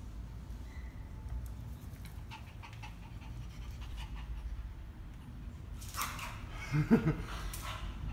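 Pit bull panting, loudest in the last two seconds, with a short low whine about seven seconds in.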